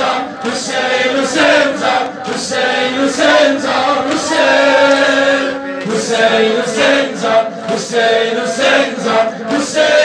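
A group of men chanting a Shia mourning lament for Hussein (a noha) together, with rhythmic chest-beating at about three beats every two seconds.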